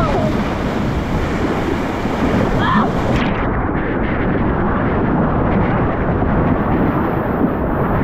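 Loud rush of white water splashing through a water-park rafting slide's flume, heard close at the water surface beside the raft. The sound turns duller about three seconds in.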